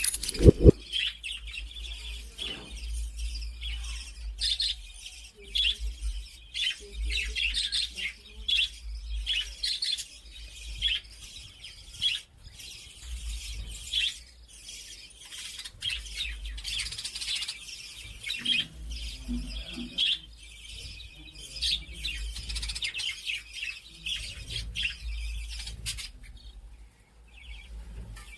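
Birds chirping in quick, repeated short calls over a low, steady rumble.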